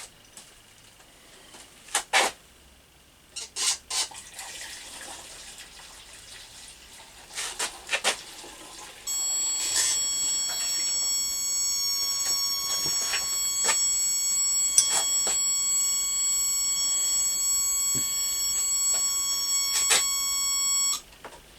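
A few knocks and faint pouring of fuel into a motorcycle petrol tank, then about nine seconds in a continuity tester starts a steady high-pitched beep that holds for about twelve seconds and cuts off suddenly. The beep signals that the tank's float switch has risen and closed its circuit, at just over 2 litres of fuel.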